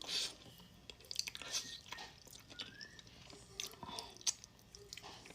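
Close-up chewing and mouth sounds of a person eating tender braised oxtail: irregular wet smacks and clicks.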